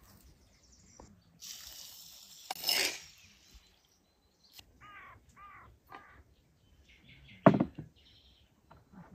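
A bird calling several times in quick, short harsh calls about five to six seconds in. There is a sharp knock, the loudest sound, about halfway between that and the end, and a brief hissing rustle earlier on.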